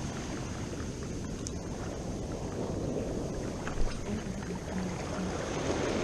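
Ocean surf washing on the beach with wind on the microphone, and a brief knock about four seconds in.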